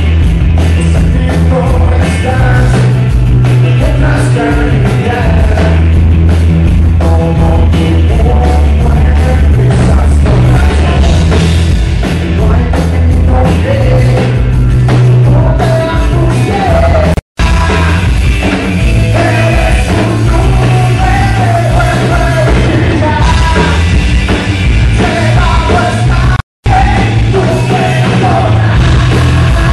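A live rock band playing loud, with a male singer singing into a microphone. The sound drops out completely for an instant twice, about 17 and 26 seconds in.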